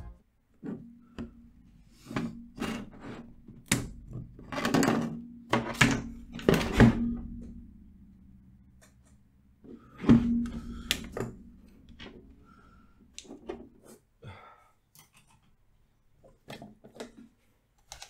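Clicks, knocks and a few louder thunks from a Cooler Master MasterKeys Pro S mechanical keyboard's plastic case and plate as it is pried apart with a flat screwdriver and the top case is lifted off. The loudest knocks come about 6 to 7 seconds in and about 10 seconds in, and some ring briefly with a low hum.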